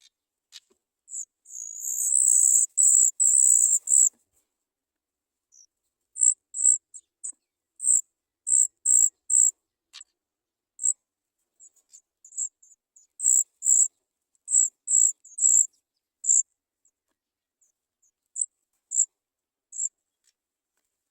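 Sooty chat nestlings giving high-pitched begging chirps, typical of chicks waiting to be fed. A rapid, loud run of calls comes in the first few seconds, then single short chirps about every half second.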